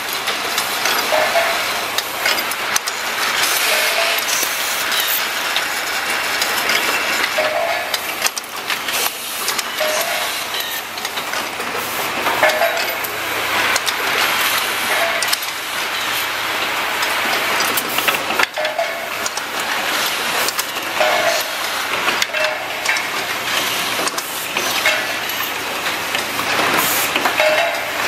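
Automated faucet assembly machine running: a steady mechanical clatter and hiss, with short clacks and a brief tone recurring about every one to two seconds as the stations cycle.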